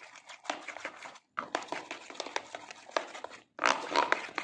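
Thick semolina batter being beaten by hand in a steel bowl: rapid wet scraping and slapping strokes against the metal, briefly pausing twice and getting louder near the end.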